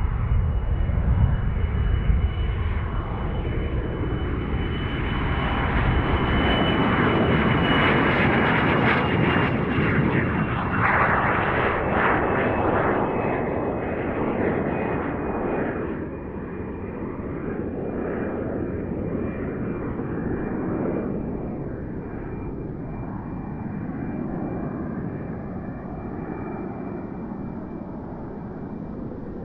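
A model jet's B300F gas turbine running, with a steady high whine over the rush of its exhaust. The whine sinks slowly in pitch, and the rush swells loudest about ten seconds in, then eases off.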